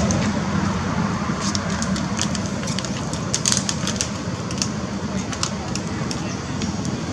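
Dry leaves and twigs crackling underfoot, a scatter of sharp crackles over a steady low background rumble.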